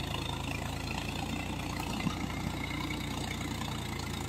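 Farm tractor's diesel engine running steadily under load as it pulls a rotary tiller through wet, muddy soil.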